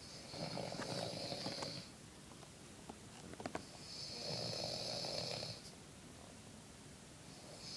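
A woman snoring in her sleep: three long snores about three and a half seconds apart, the last one starting near the end, with a few short clicks between the first two.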